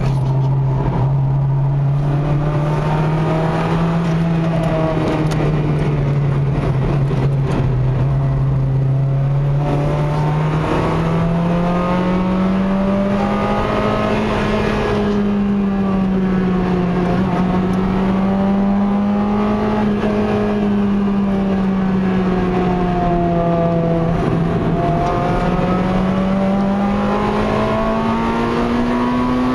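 Inside the cabin of a Honda Integra Type R (DC5), its 2.0-litre four-cylinder K20A engine running at moderate revs, the engine note slowly rising and falling several times as the car is driven at an easy pace around a racing circuit.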